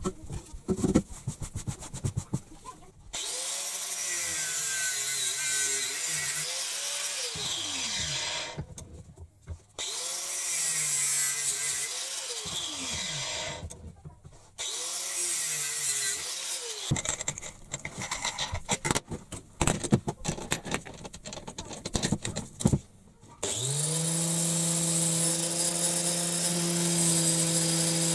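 Metal taps and clinks at first, then a power tool running in three bursts of a few seconds under load, its pitch dipping and recovering. Near the end an electric angle grinder spins up and runs steadily as the steel base plate of an oil filter is held against its abrasive disc.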